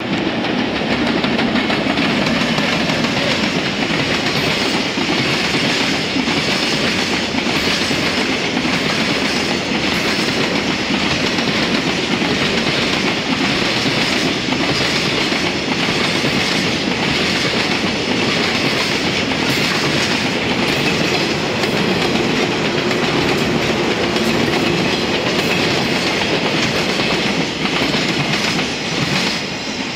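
JR Freight container train hauled by an EF210 electric locomotive passing close by: the steel wheels of the container flatcars rumble and click over the rail joints in a loud, steady run that starts to fade near the end as the last wagons go by.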